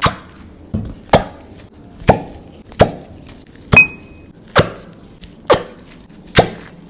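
A series of about eight sharp knocks, roughly one a second, each dying away quickly.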